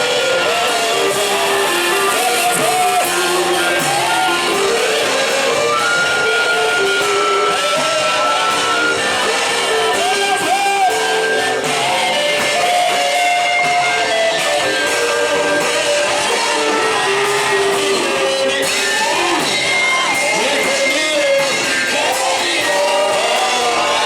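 Live worship music with singing over instruments and some shouting, steady throughout.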